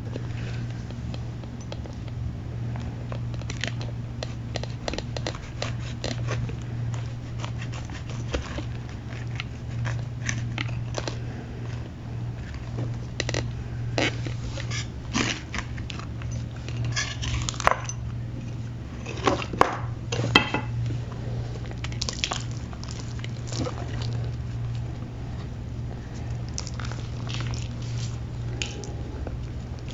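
Gym chalk pressed into a cake shape being crushed, crumbling in many small dry crackles and crunches, with a few louder cracks a little past halfway. A steady low hum runs underneath.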